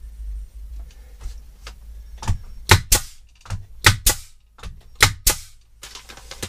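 An 18-gauge pneumatic brad nailer fires brad nails up through shiplap ceiling boards. About seven sharp shots come, mostly in quick pairs, from about two seconds in to just past five seconds.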